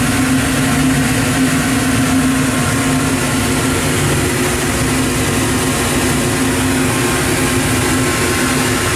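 Steady mechanical drone with an even low hum and hiss from the powered-up Mollart Omnisprint LD2-750 CNC gun drilling machine running idle, its spindles not yet turning.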